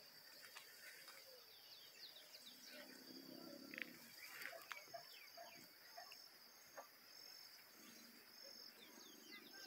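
Very faint countryside ambience: a steady high-pitched insect drone with many short, scattered bird chirps.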